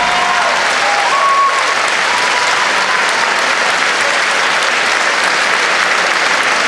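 A large theatre audience applauding steadily at the end of a song.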